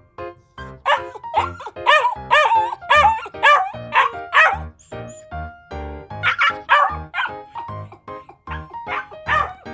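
A dog barking and yipping in quick, repeated short barks over background music, with a brief pause about halfway through.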